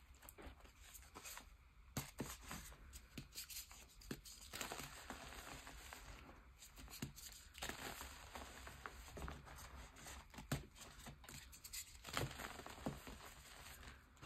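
Hands crushing and crumbling moulded gym chalk into loose chalk powder: soft crunching and crackling with many small irregular snaps. It is sparse for the first couple of seconds, then dense.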